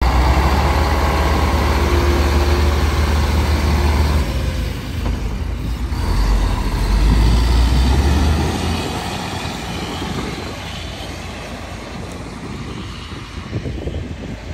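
2000 Mack CH613 tandem tanker truck's diesel engine running as the truck pulls away and drives past. The low engine note drops off about four seconds in, picks up again, then fades as the truck moves away.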